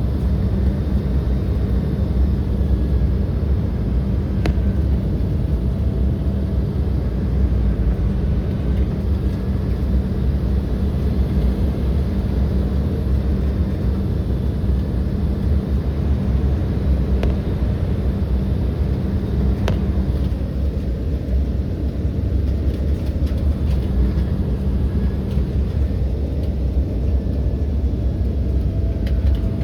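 Steady low rumble of an Embraer 175 airliner's General Electric CF34 turbofans and airflow, heard inside the passenger cabin, with a few faint clicks.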